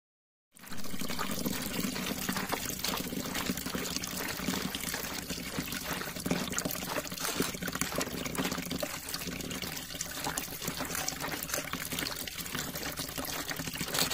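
Cashew apples being crushed under bare feet, a wet squishing and crackling with juice trickling and running off. It starts abruptly about half a second in and keeps on steadily.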